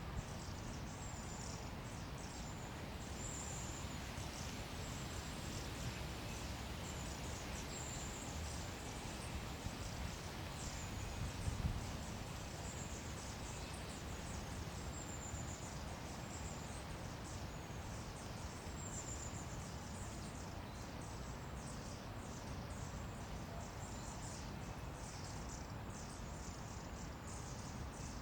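High-pitched insect chirping, repeated short chirps going on continuously, over a steady low background rumble. A brief low thump comes a little before halfway.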